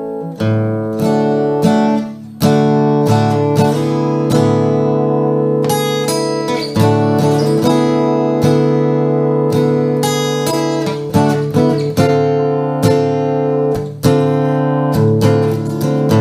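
Emerald X20 carbon-fibre acoustic guitar being played: chords struck one after another, each left to ring into the next.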